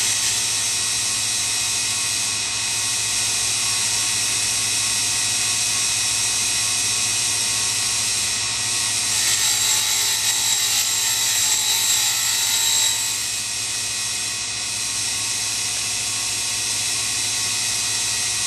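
Small grinding wheel spinning on a Sherline spindle, a steady mechanical whine over a low hum. From about nine to thirteen seconds in, a brighter hiss rises as a diamond dresser is fed across the wheel, truing its face.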